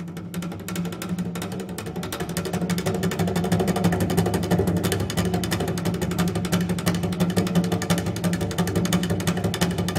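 Solo cello in a contemporary piece, played as a fast, dense stream of short percussive strokes over a steady low tone, growing louder over the first few seconds and then holding.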